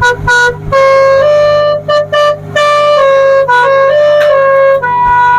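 Telolet basuri multi-tone air horn on a tourist boat playing a loud tune: a run of held notes that changes pitch every half second or so, with a few short breaks, over a steady low hum.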